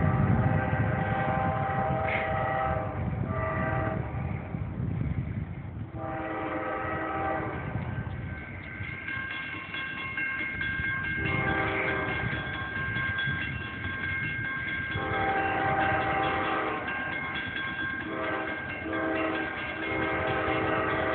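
Nathan K5LA five-chime air horn on a CSX freight's lead GE locomotive, sounding a long series of blasts of differing length that break off and start again many times. Underneath is the rumble of the diesel locomotives working hard, loudest at the start.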